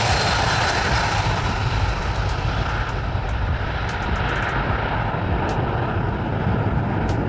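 A BAe 146-300 airliner's four turbofan engines running at takeoff power as it lifts off and climbs away: a steady jet noise with a deep rumble underneath.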